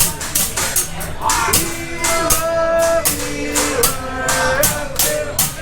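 Music with a steady beat and a melody over it.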